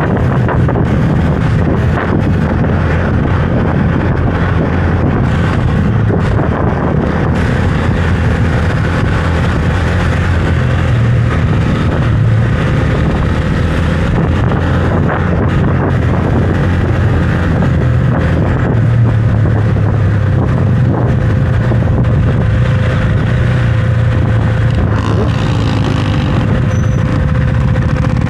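Husqvarna Svartpilen 401's single-cylinder engine running steadily while riding, its note rising and falling a little with the throttle.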